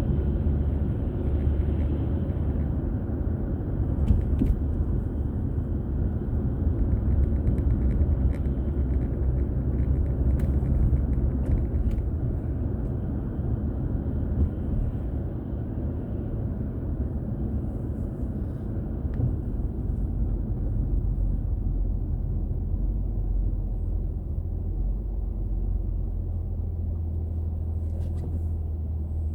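Steady low rumble of a car on the move, with engine and tyre noise picked up by a dashboard drive recorder inside the cabin and a few faint clicks. The rumble eases slightly about halfway through.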